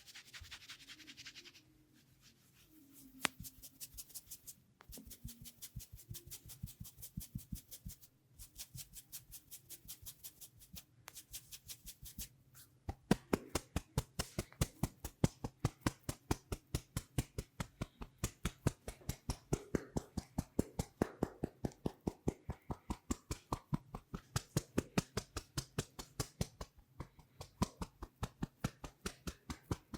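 Rapid, even percussive hand tapping in a head-and-neck massage: a fast steady train of short slaps, several a second, that grows clearly louder about halfway through.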